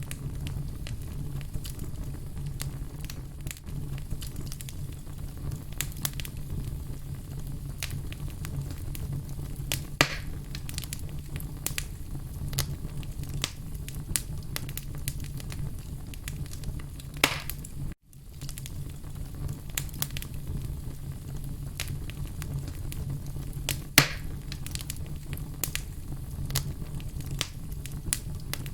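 Log fire burning in a fireplace: a steady low rumble of flames with frequent small crackles and a few sharper pops. The sound drops out for a split second about two-thirds of the way through.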